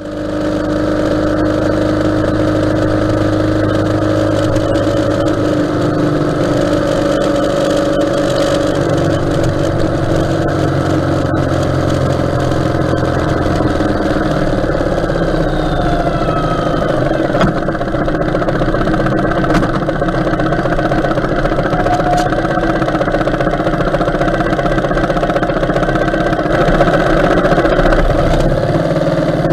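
Ural sidecar motorcycle's flat-twin engine running steadily on the road, with wind and road noise; the engine note drops about halfway through.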